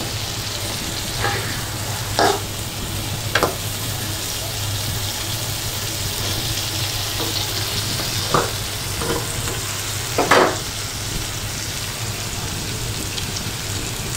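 Fish frying in an onion masala in a pan, giving a steady sizzle. A spatula scrapes and knocks against the pan several times, loudest just after ten seconds in.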